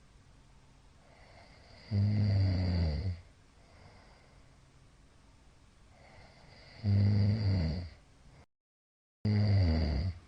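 A middle-aged man snoring loudly in his sleep: three low, pitched snores of about a second each, some four to five seconds apart, with quiet breathing between. The sound drops out to dead silence for under a second just before the third snore, which starts abruptly.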